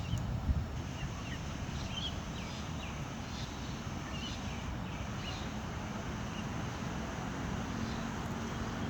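Steady low rumble of wind on the microphone, with a scatter of short, high bird chirps in the first half.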